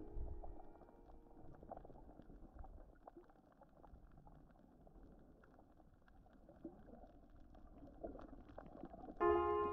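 Faint, muffled underwater sound with a low watery rumble and scattered small crackles. Piano music comes back in near the end.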